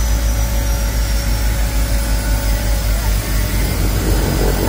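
Seaplane's turboprop engine and propeller running with a steady low drone, heard from inside the cabin.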